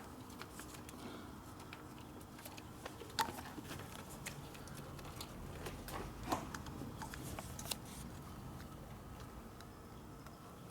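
Hand work on a motorcycle engine: scattered light clicks and taps of tools and metal parts, a few sharper knocks about three, six and seven and a half seconds in, over a faint steady hum.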